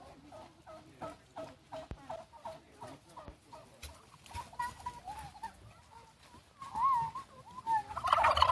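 Domestic turkeys calling: a quick series of short clucks at about three a second, then higher wavering calls, and a loud rattling gobble bursts out near the end.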